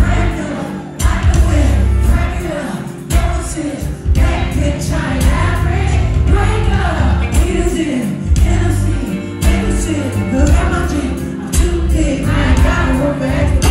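A woman singing R&B live into a microphone over a full band, with electric guitar, keyboards, heavy bass and drums.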